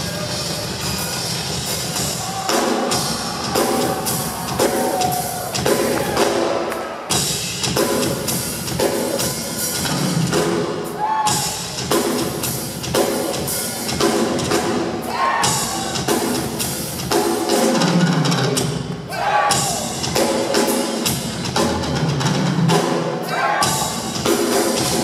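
Acoustic drum kit played in a fast, dense live solo: rapid strokes around the toms and cymbals with bass drum underneath, the drums ringing between hits.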